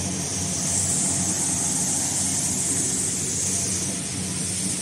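Steady running noise of production-line machinery: a low electric hum with a high hiss over it, the hiss a little louder from about a second in.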